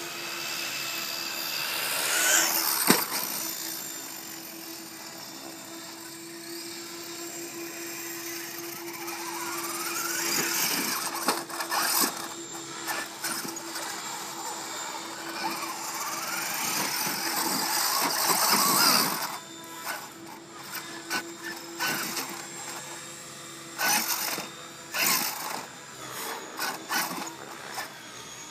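Brushless electric motor of a Traxxas E-Revo 1/10 RC monster truck (3S LiPo) whining and revving up in rising sweeps as it drives on pavement. Near the end it gives short throttle bursts with pauses as it tries to climb wooden stairs.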